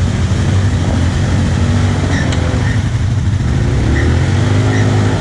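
ATV engines: a steady low idle hum from a nearby stopped quad, while a second ATV revs through a muddy water hole, its engine pitch rising near the end.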